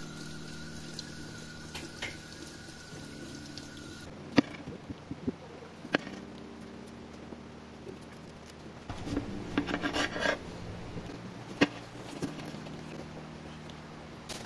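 Kitchen tap running over a tomato at the start, then a kitchen knife cutting an onion on a plastic cutting board. There are single sharp knife taps on the board and a quick run of chopping strokes about nine seconds in.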